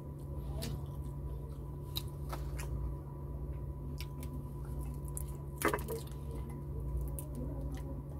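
Close-up eating sounds: wet mouth smacks, finger licking and chewing as fried tilapia and rice are eaten by hand, with scattered small clicks and one louder smack a little past halfway, over a steady low hum.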